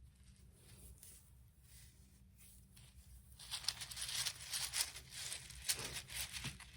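A bag crinkling and rustling as it is handled. It starts faint, then turns into a steady, dense crackle about halfway through.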